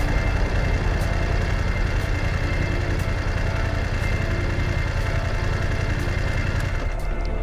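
Motorcycle engine idling steadily, with a faint tick about once a second.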